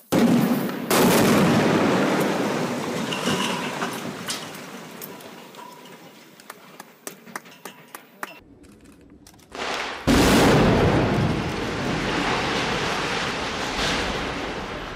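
Demolition of a concrete tower: a sharp blast, then a loud rumble that fades over several seconds with scattered crackles. Just after ten seconds in comes a second loud blast and collapse rumble from another building demolition, also fading slowly.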